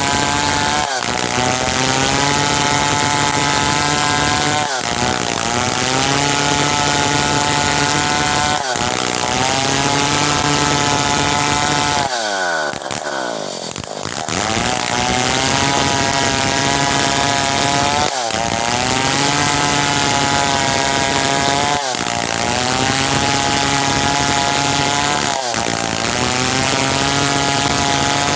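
Stihl 070 chainsaw's big two-stroke engine running at high revs under load, sawing merbau hardwood. Its pitch dips briefly about every four seconds, with a longer drop in revs about halfway through.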